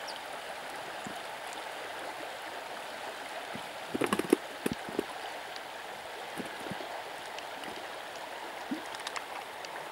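Shallow river riffle flowing steadily, with a few short knocks about four seconds in.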